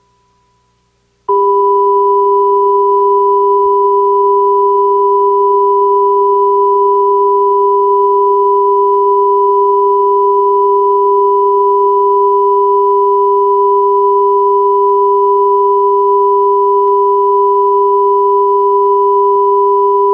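Broadcast line-up test tone sent with colour bars. It is a loud, steady electronic tone of two pitches sounding together, one high and one lower. It starts suddenly about a second in and runs on without any change.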